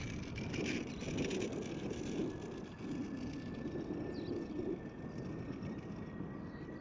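Distant Boeing 747-400 freighter's four jet engines running as it begins rolling for takeoff: a steady low rumble with a faint, steady high whine.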